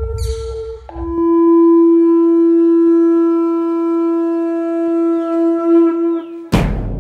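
Soundtrack music: a single long, steady note on a horn-like wind instrument, held for about five and a half seconds. Near the end comes a heavy drum hit.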